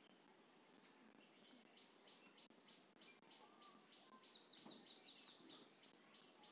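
Near silence with faint bird chirping in the background: a quick run of short, falling chirps, several a second.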